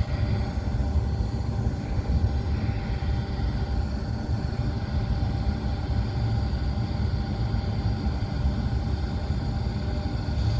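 Lennox rooftop HVAC unit running in heating mode, burners lit and the newly replaced belt-drive blower turning: a steady low rumble with a constant machine hum.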